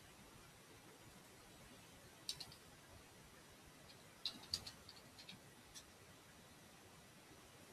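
Faint computer keyboard and mouse clicks over low room hiss: a click or two about two seconds in, then a short run of keystrokes between about four and six seconds in.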